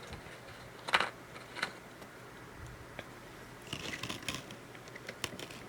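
Small plastic clicks and rattles from handling a plastic action figure and fitting its gun accessory: a sharp click about a second in, another shortly after, then a cluster of small clicks near the end.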